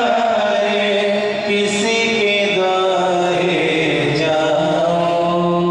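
Hindu devotional chanting, amplified over a sound system, with long held notes and steady musical backing that never pauses.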